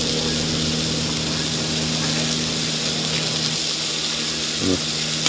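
Carne asada sizzling steadily on a camp stove, with a steady low hum underneath.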